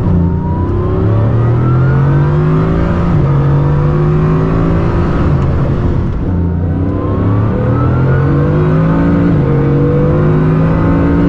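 Rimac Nevera's electric drivetrain under full acceleration, twice: a whine rising in pitch over heavy road and wind noise, with a dip between the two runs about six seconds in.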